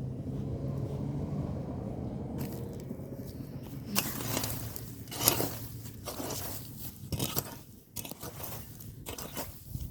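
A low steady rumble, then from about four seconds in a run of irregular scraping strokes from a hand tool working farm soil.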